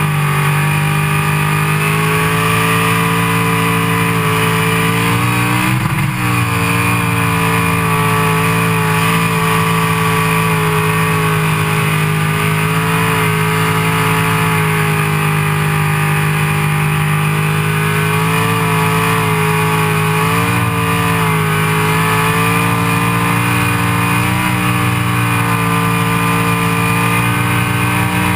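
Twin-carburettor V8 held at high revs through a burnout, heard from a camera mounted on the car just behind the engine. The pitch stays steady, with one brief dip about six seconds in.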